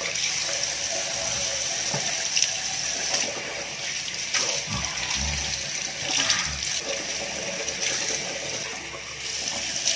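Bathroom sink tap running steadily while someone brushes their teeth, spitting out toothpaste foam about four seconds in.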